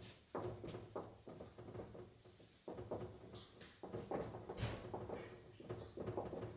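Dry-erase marker writing on a whiteboard: a run of short, irregular squeaking and scratching strokes as letters are written.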